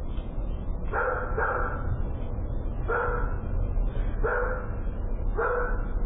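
A dog barking five times at uneven intervals of about one to one and a half seconds, over a steady low rumble, heard through a doorbell camera's microphone.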